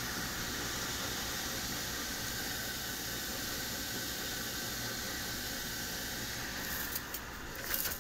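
Gas pack's blower running with the access panel off: a steady rush of air with a low hum underneath. Near the end the high hiss thins and a few faint clicks come through.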